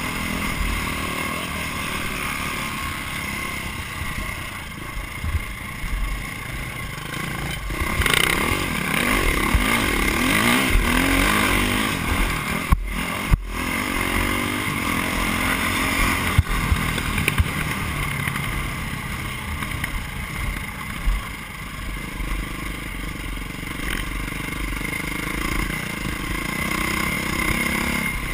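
Dirt bike engine heard from a camera on the bike, revving up and down through the gears as it races across a grass track.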